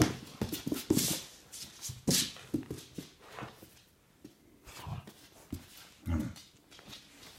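Husky puppy playing with a plush toy on a tile floor: a few sharp knocks and clatters of the toy and paws on the tiles in the first two seconds, then a couple of short puppy vocal sounds.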